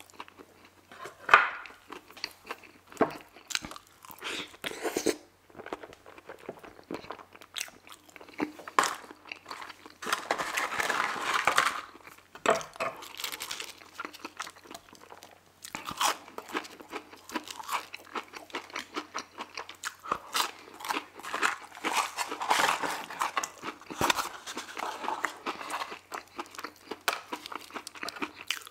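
Close-miked chewing and crunching of crispy fried food, a Burger King fried chicken sandwich and onion rings. The bites come in a run of crackly crunches, busiest about ten seconds in and again after twenty seconds.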